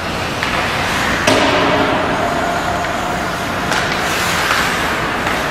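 Ice hockey rink during play: a steady arena hum with sharp clacks of stick on puck, the clearest about a second in and again near four seconds.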